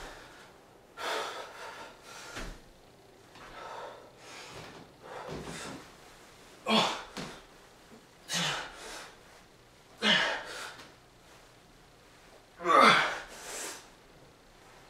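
A man breathing hard in short, forceful exhales and gasps while doing pull-ups on a doorway bar. The breaths come every second or two and grow louder toward the end, as the effort builds.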